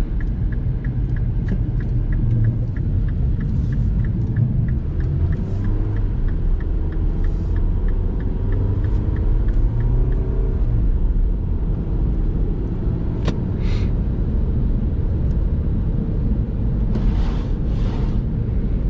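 Car driving on snowy roads, heard from inside the cabin: a steady low engine and road rumble. For about the first half an even ticking runs at roughly two to three ticks a second, and midway the engine note rises as the car speeds up.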